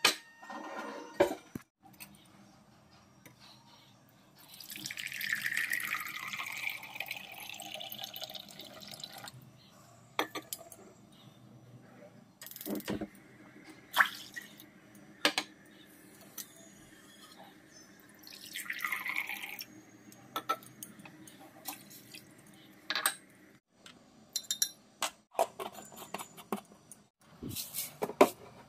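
Kitchen sounds: liquid is poured into a vessel twice, a long pour and then a shorter one about half way through. Sharp clinks and knocks of steel pots and utensils come in between.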